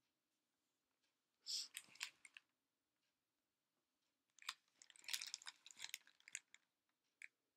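Faint handling noise: soft rustling and light clicks as the recording device is picked up and its screen tapped, in two short patches about a second and a half in and again from about four and a half to six and a half seconds.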